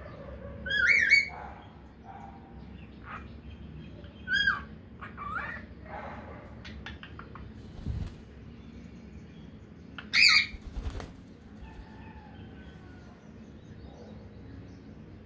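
White cockatiels calling: loud, sharp, sliding whistled calls about a second in, twice around four to five seconds in, and again about ten seconds in. There is a brief wing flap near the middle and a few soft chirps near the end.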